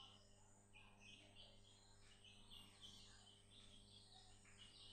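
Near silence: faint, high-pitched chirping repeating over a low steady hum.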